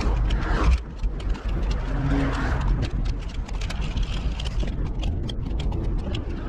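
Fast-forwarded audio of a skating ride: a steady low rumble of wind and rolling with many quick irregular clicks and ticks, and a brief pitched hum about two seconds in.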